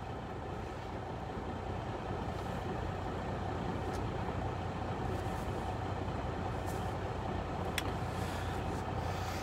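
Steady low hum of a diesel semi truck engine running, heard from inside the truck's cab, growing a little louder over the first few seconds. A single faint click comes near the end.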